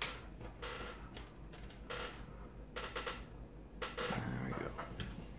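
Wire leads and clip connectors being handled as the instrument cluster is hooked up to power: a string of light clicks and rustles, the fullest about four seconds in.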